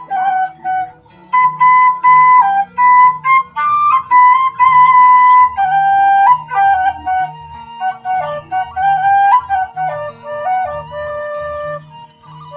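Sundanese bamboo suling playing a stepping melody, over a low accompaniment of pulsing bass notes in a steady rhythm.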